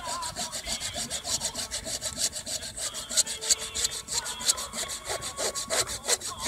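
Hand saw cutting through a thin wooden drawer board in quick, regular strokes.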